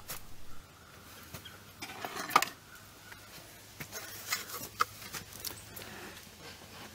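Light handling noises from hands working on parts: scattered small clicks and rubs, with one sharper click about two and a half seconds in, over a faint steady hum.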